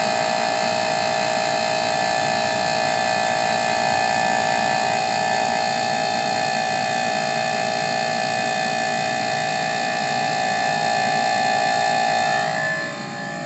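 2016 Kia Soul EV heat pump running at high speed, working hard to heat in −2 °C air: a steady whine with several held tones over a rush of air. About a second before the end the level drops and the pitch of the whine shifts.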